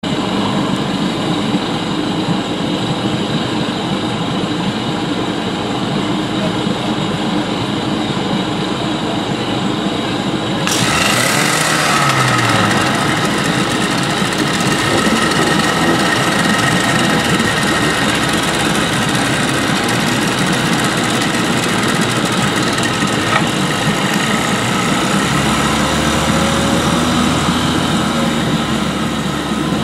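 A vehicle's engine running steadily while under way. About eleven seconds in, the sound abruptly turns brighter and a little louder, then stays steady.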